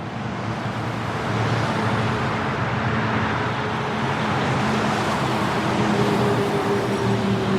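Medium highway traffic at about 60–70 mph on wet concrete: a steady wash of tyre spray and engine noise from passing vehicles, fading in over the first second.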